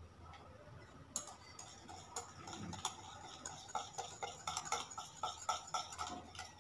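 A kitchen utensil clinking against a ceramic mixing bowl while condensed milk and beaten yogurt are stirred together. It is a quick run of light clinks, about four a second, starting about a second in.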